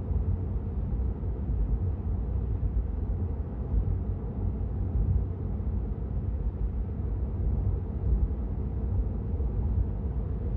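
Steady low road and tyre rumble inside the cabin of a Tesla Model 3, an electric car, cruising at motorway speed.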